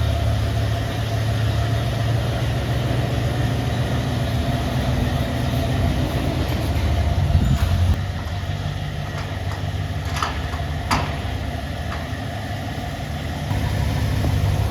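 Dodge Charger's engine and road noise heard from inside the cabin while driving, a steady low drone that swells a little partway through, eases off, then rises again near the end. Two sharp clicks come near the middle.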